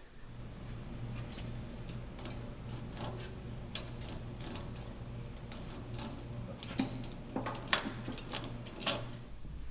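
Radiator fin-straightening comb raked through the bent cooling fins of a large tractor radiator, making irregular light metallic clicks and scrapes that grow sharper and louder a few seconds before the end. A steady low hum runs underneath.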